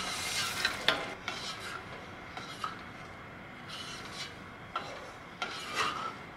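Wooden spatula mashing and stirring softened pumpkin in a metal pot, scraping against the pot in a few strokes with light knocks.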